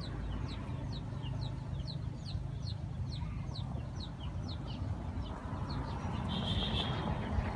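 Rural outdoor ambience with chickens clucking, and a small bird repeating short falling chirps about three times a second that stop about two-thirds of the way through, over a steady low rumble.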